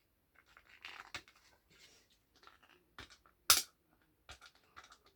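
Scattered clicks and taps of small plastic Lego pieces being handled and fitted. The sharpest click comes about three and a half seconds in.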